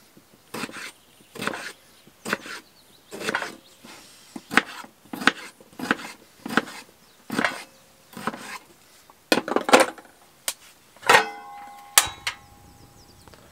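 Kitchen knife slicing through tomatoes and knocking on a bamboo cutting board, a sharp stroke roughly every three-quarters of a second. Near the end come two metallic clinks with a short ring.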